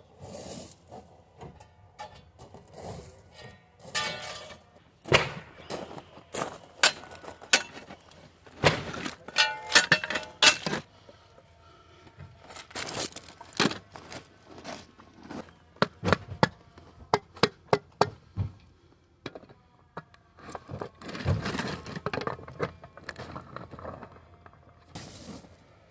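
Irregular knocks, thuds and clatter of hard objects being handled and set down, in quick clusters with short pauses between.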